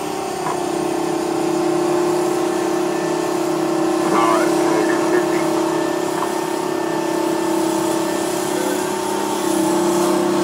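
Detroit Diesel 12V71 two-stroke V12 of a Sicard snowblower running steadily under load as it blows snow, a constant drone heard from inside a following vehicle's cab. It gets a little louder about nine and a half seconds in.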